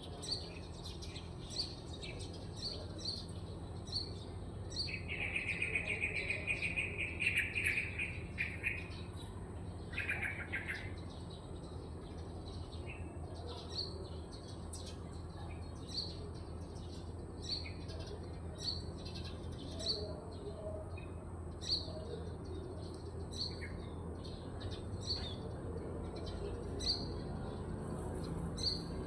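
Birds calling at dawn: one bird gives a short high chirp about once a second throughout, and a rapid trilled call runs for about four seconds near the start, with a short trill again a little later.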